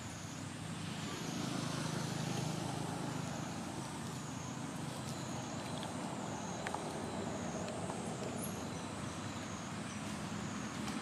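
A steady low engine rumble, like a motor vehicle running nearby, swelling a little around two seconds in. A thin high whine wavers up and down above it.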